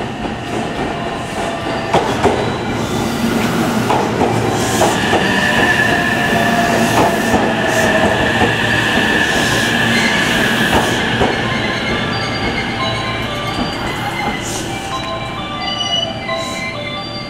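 JR West 227 series 'Red Wing' electric multiple unit pulling in and braking to a stop: wheels clacking over rail joints, a high steady brake squeal through the middle, and a falling whine as it slows. Short repeated beeping tones near the end.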